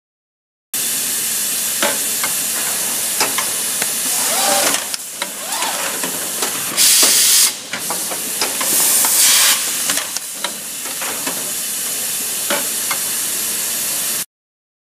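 Automatic bag-making machine running: a steady hiss with many scattered mechanical clicks, and two loud bursts of hissing air from its pneumatics, each about a second long, around the middle.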